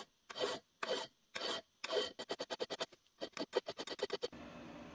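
Hand file rasping across a small metal part held in a small lathe's collet. It starts with about five slow strokes half a second apart, then quicker short strokes at about six a second, and stops a little after four seconds in.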